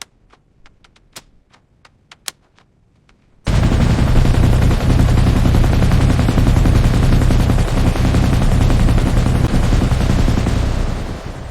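A dozen or so sharp mechanical clicks, then a long unbroken burst of rapid automatic gunfire starting suddenly about three and a half seconds in and dying away near the end.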